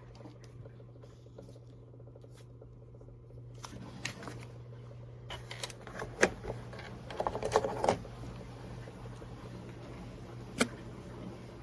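A steady low hum with a few scattered sharp clicks and knocks, bunched in a short cluster near the middle.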